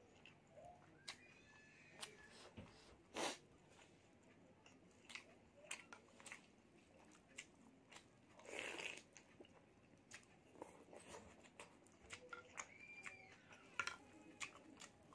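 Faint close-up eating sounds: wet mouth clicks and chewing of instant noodles in spicy broth, with a noodle slurp about eight and a half seconds in.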